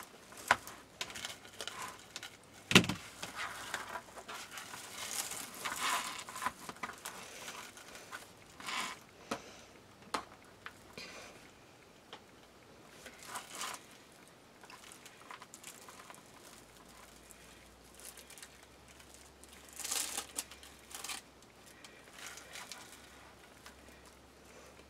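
Plastic deco mesh rustling and crinkling in irregular bursts as hands push and fluff it on a wreath, with one sharp tap about three seconds in.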